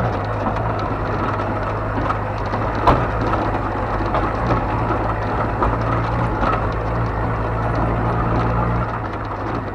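Ford Ranchero pickup's engine running steadily at low speed, heard from inside the cab, with scattered knocks and rattles as it rolls over loose stones and rough gravel; one sharper knock about three seconds in.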